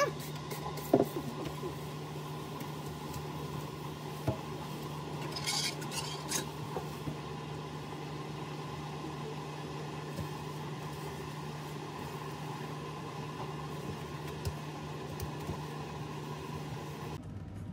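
Cleaning a stainless-steel sink: a knock against the metal about a second in, a few quick squirts of a trigger spray bottle of disinfectant around five to six seconds in, then a paper kitchen towel wiping the sink with small knocks. A steady low hum runs underneath and cuts off just before the end.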